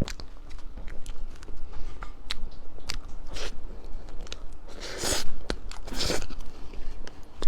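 Close-miked crunching and chewing of crisp food: a rapid run of sharp crackling bites, with two louder, longer crunches about five and six seconds in.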